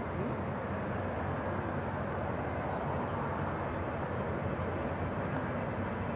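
McDonnell Douglas MD-82 airliner's twin rear-mounted Pratt & Whitney JT8D turbofans, a steady jet rumble as the aircraft rolls down the runway.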